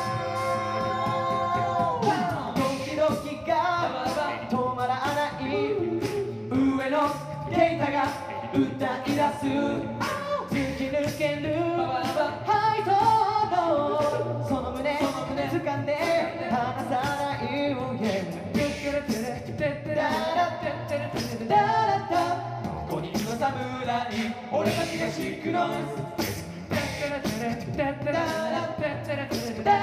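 Five-man male a cappella group singing live through microphones: a held chord for about the first two seconds, then an up-tempo song with vocal percussion keeping a steady beat under the voices.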